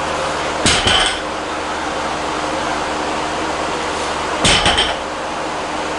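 Loaded barbell clanking twice, about a second in and again near the five-second mark: a quick cluster of metallic clinks each time from the plates and collars shifting on the bar's sleeves during a 120 kg lift. A steady hum runs underneath.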